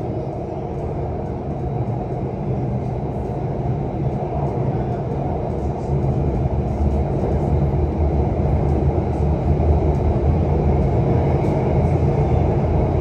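Alstom Metropolis C830 metro train running through a tunnel with steady running noise, getting a little louder about six seconds in.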